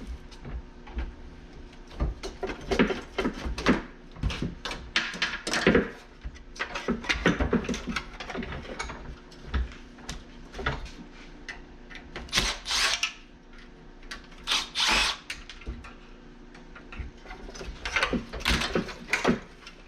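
Irregular metal clanks, knocks and scrapes from cutting the copper refrigerant tubing of a dehumidifier and working its coils free. There are a couple of longer rasping scrapes about two-thirds of the way through.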